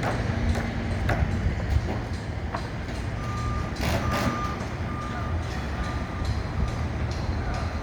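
A vehicle's reversing alarm beeps evenly, starting about three seconds in, over a steady low rumble of machinery and traffic, with scattered sharp knocks.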